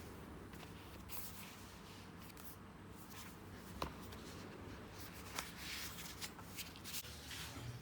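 Faint rustling and handling, with a few light taps and clicks, mostly in the second half.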